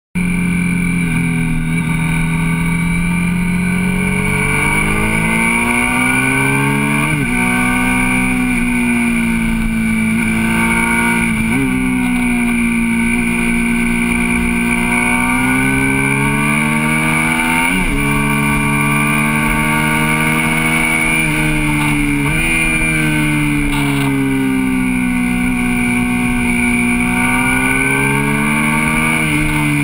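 Onboard sound of a motorcycle engine riding through a series of bends, its note slowly rising and falling with the throttle, with a quick sharp change in pitch about five times, over steady wind and road noise.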